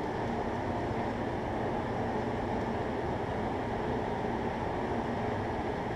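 Steady, even background rumble with a faint hiss, unchanging and without distinct knocks or voices.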